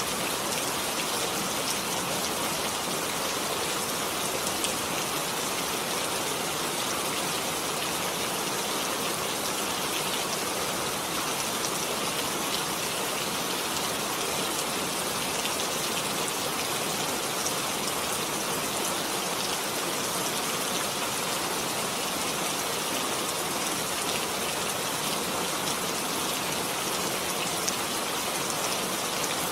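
Heavy rain falling steadily, a dense even hiss of drops on surfaces with the odd louder drop.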